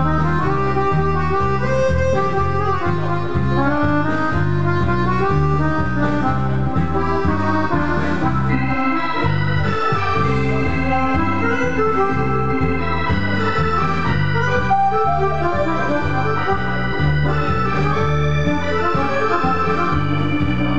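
Accordion playing a lively dance tune, the melody running in quick notes over a steady, evenly repeating bass.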